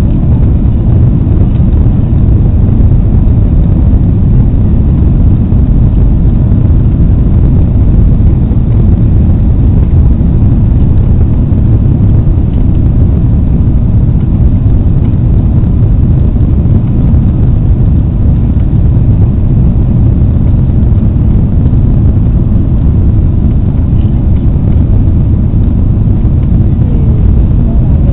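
Steady low rumble of engine and airflow noise inside the cabin of an Airbus airliner descending to land with its flaps extended.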